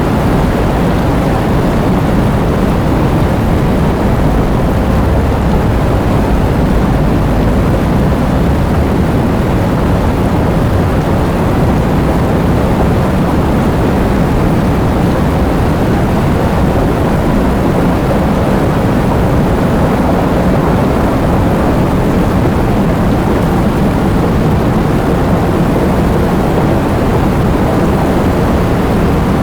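Heavy rain pouring down in strong wind: a loud, steady, deep rushing noise with no breaks.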